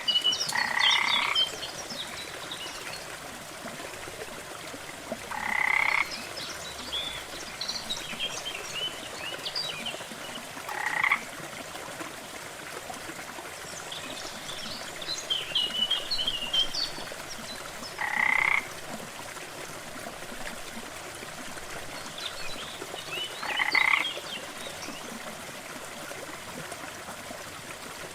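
A frog croaking five times, one short call every five or six seconds, over the steady rush of a small waterfall, with scattered high chirps in between.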